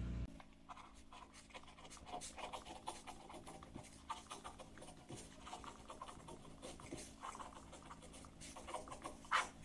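Faint scratching of a ballpoint pen on paper as words are written out, in quick, irregular strokes.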